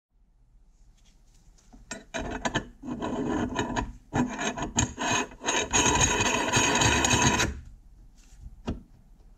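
Cast-iron retaining ring of an Enterprise tinned meat grinder being screwed onto the grinder's threaded barrel over the cutting plate. It makes a gritty metal-on-metal scraping that comes in several spells over about five seconds. A single sharp click follows near the end.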